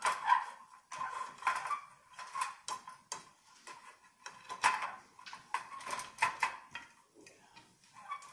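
Glass fluorescent tubes handled against a metal twin-tube batten fitting and fitted into its lamp holders: a run of irregular clicks, knocks and light clatters.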